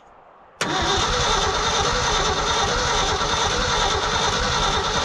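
Starter cranking the engine of an old Ford bumpside F-350, cutting in suddenly about half a second in and turning the engine over steadily without it firing. The crew suspect it has no spark.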